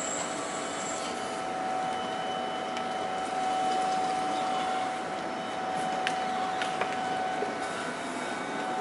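Electric Cat forklift driving with a load, its motor giving a steady whine over a noisy hum, with a few light clicks about six to seven seconds in.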